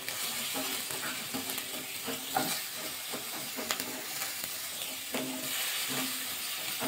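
Wooden spatula stirring and scraping a sizzling masala of fried onion paste, ginger-garlic and red chilli powder around a nonstick kadai. The oil fries with a steady hiss, broken by short scrapes of the spatula every second or so.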